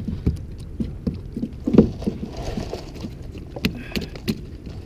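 Handling noises in a kayak: scattered light knocks and bumps against the hull over a low rumble.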